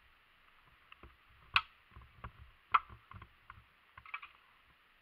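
Knocks, scuffs and light ticks from a camera being handled and carried through brush, two sharp knocks standing out, about a second and a half and nearly three seconds in.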